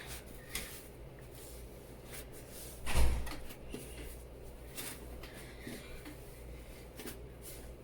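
Knocks and clicks of hands and utensils while homemade play dough is mixed, scattered a few times through, with one loud thump about three seconds in.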